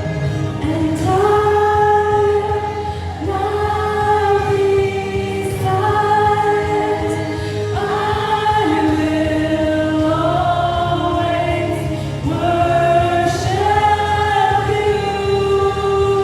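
Christian worship song: voices singing slow phrases of long held notes over a steady instrumental backing.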